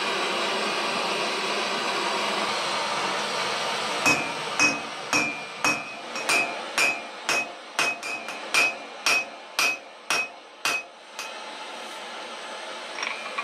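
A gas forge burning with a steady rushing noise. From about four seconds in, roughly fifteen hammer blows on glowing steel over an anvil, about two a second, each with a bright metallic ring, stopping about eleven seconds in.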